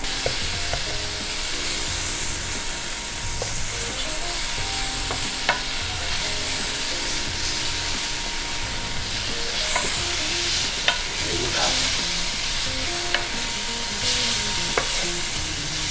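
Sliced peppers and onions with tomato paste sizzling in a stainless steel sauté pan while a slotted wooden spatula stirs and scrapes them, with a few sharp knocks of the spatula against the pan. The tomato paste is toasting in the hot pan.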